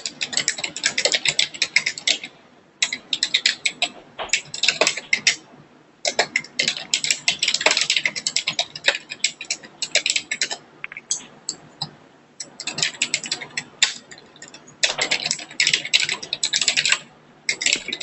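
Computer keyboard typing in quick runs of keystrokes, broken by short pauses of under a second to about a second and a half.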